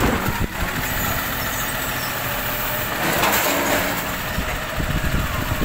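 Side-loading recycling truck running at idle while its hydraulic arm grips and lifts a wheelie bin to the hopper, with a louder rushing swell about three seconds in.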